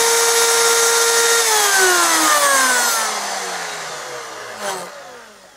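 Electric hand router running at full speed with a high whine and a hiss, then switched off about a second and a half in. Its pitch falls steadily and the sound fades as the motor spins down.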